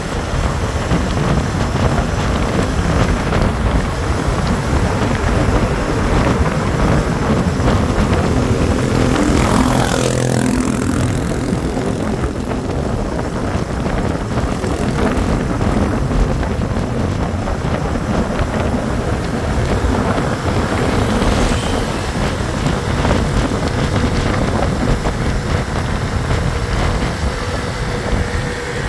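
Motorcycle riding at speed on a city road: steady engine and road noise with heavy wind buffeting on the microphone. About ten seconds in, a brief whine falls in pitch.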